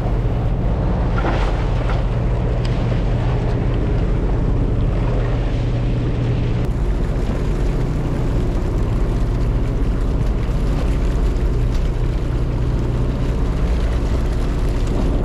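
Charter fishing boat's engine running steadily with a low hum.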